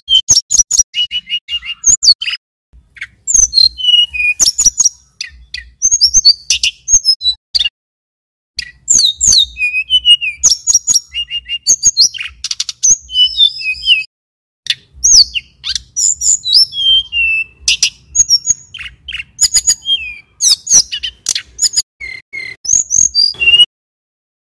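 Male tledekan gunung (sulingan gunung) singing loud, rapid phrases of high chirps, whistled sweeps and trills. It pauses briefly twice and falls silent just before the end.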